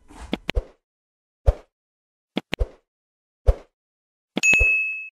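A few sharp clicks about a second apart, then a bright bell ding that rings for about half a second near the end: the click-and-ding sound effects of a subscribe-button and notification-bell animation.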